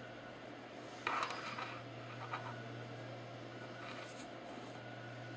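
Faint rubbing and scraping of gloved fingers turning a threaded steel linkage rod between carburettor ball joints, with one brief louder scrape about a second in and a few lighter ticks and rubs after it.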